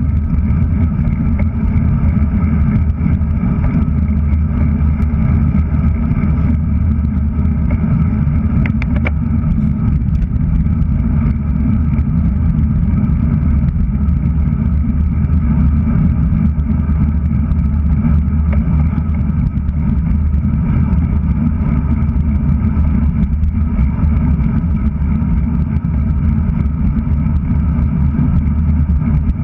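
Wind buffeting a handlebar-mounted GoPro Hero3+ on a moving road bike, with road noise from the tyres: a loud, steady low rumble. A few faint clicks come about nine seconds in.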